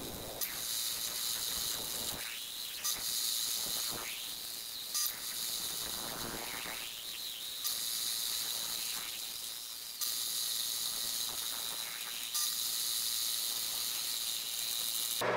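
Milling machine cutting aluminium: a steady high hiss with a constant whine. A few falling sweeps and light ticks come as the cutter works the part and throws chips.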